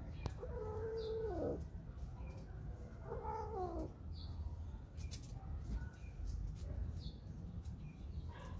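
Mating cat yowling twice. The first is a long held call that bends sharply up and back down near its end, about a second in. The second is shorter and falls in pitch, around three seconds in.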